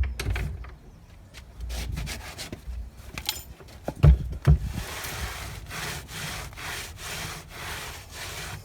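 A hand tool working the edge of a wooden gate: scraping and sawing strokes on the wood, trimming it down. There are a few scattered strokes, two knocks about four seconds in, then a steady run of about two to three strokes a second.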